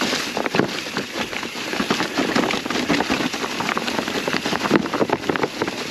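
Mountain bike tyres rolling over a rocky trail covered in dry fall leaves: a dense, continuous crackle of leaves with many quick clicks and rattles from rock underneath.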